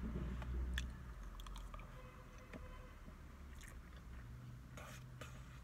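Close-up chewing of food, with scattered small clicks and crunchy mouth sounds.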